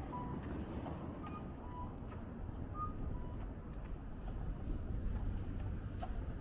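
Outdoor street ambience: a steady low rumble of wind and traffic, with faint short high chirps now and then.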